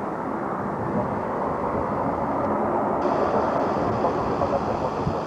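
Four Ivchenko AI-20 turboprop engines of an Ilyushin Il-22M (Il-18 airframe) running with a steady, loud drone of propeller and engine noise.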